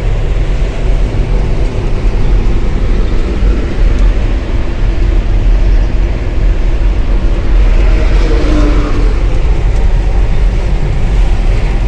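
Heavy truck's diesel engine running steadily as it hauls a trailer loaded with an excavator, a loud deep rumble. A brief higher-pitched sound rises over it about eight seconds in.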